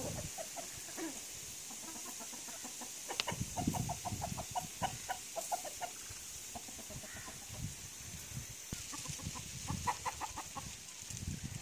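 A flock of chickens clucking, in two runs of short, quickly repeated notes: one a few seconds in, another near the end.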